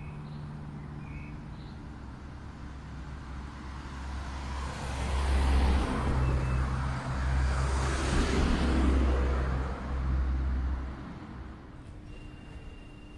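A low motor-like hum with a rushing noise that swells about four seconds in, dips briefly, and fades about eleven seconds in.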